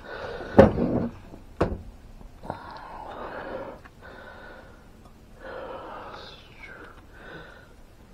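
Metal and wooden items knocked and shifted while rummaging through a packed shed: two sharp knocks, about half a second and a second and a half in, then softer shuffling and handling.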